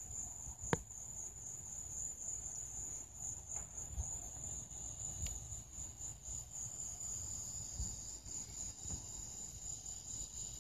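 Crickets chirring in a steady, high-pitched chorus, with a low rumble and a couple of faint clicks from the phone being moved about.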